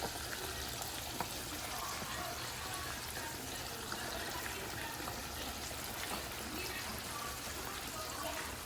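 Chicken deep-frying in hot oil: a steady sizzle.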